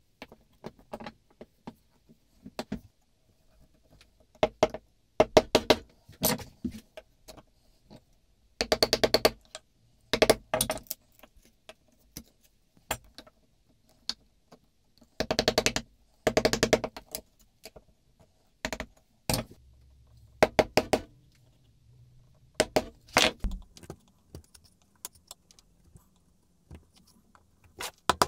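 Chisel paring a small boxwood block by hand: bursts of rapid crisp ticks as the edge cuts, separated by short pauses.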